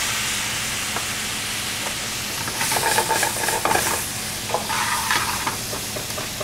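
White wine sizzling hard in a hot metal sauté pan as it deglazes the browned bits from the bottom. From about halfway, metal tongs stir and scrape through the food in the pan, adding irregular clatter over the sizzle.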